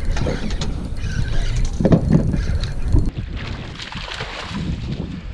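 Low wind rumble on the microphone with a few knocks, then, from about three seconds in, a hooked sheepshead splashing at the water's surface beside the boat.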